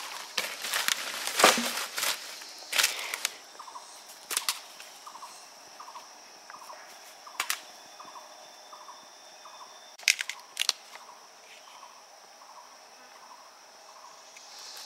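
Dry dead branches cracking and snapping as they are handled and broken: a run of sharp cracks in the first few seconds, then a few single cracks later. Under them a steady high insect buzz.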